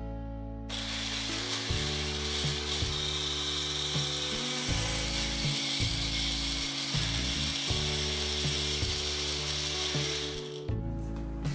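Personal blender running, grinding chopped fresh pineapple into a fine purée. It starts about a second in and cuts off near the end.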